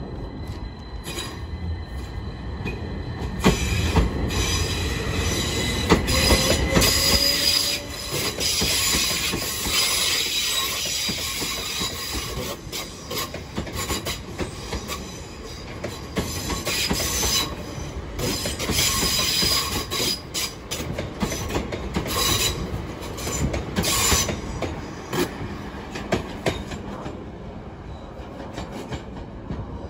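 A c2c Class 357 Electrostar electric train runs through the station, its wheels clicking over rail joints in rapid irregular clicks with a high wheel squeal and rushing hiss. It grows loud about three and a half seconds in and stays loud for several seconds as the carriages pass, then fades toward the end.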